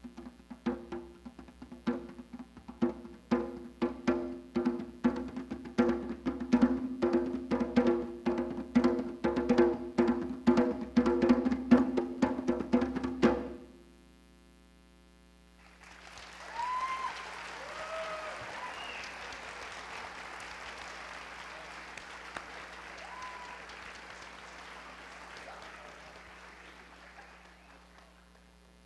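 Djembe played with bare hands: a run of quick, even strokes that grows louder and then stops abruptly. After a brief pause, an audience applauds steadily for about twelve seconds, fading toward the end.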